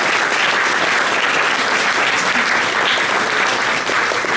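An audience applauding steadily with many hands clapping at once.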